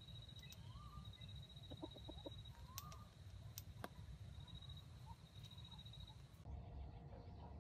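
Red junglefowl (wild chickens) clucking faintly, with a quick run of about five short clucks about two seconds in, over a steady high trill. A few sharp clicks follow.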